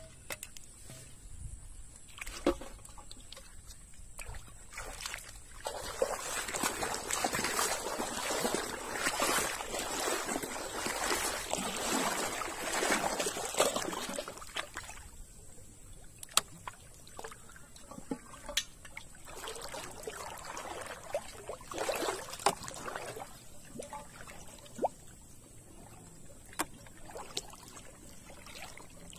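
Pond water sloshing and splashing as a person wades in, pushing a large aluminium pot along; heaviest for several seconds near the middle and again in a shorter stretch later, with scattered sharp clicks.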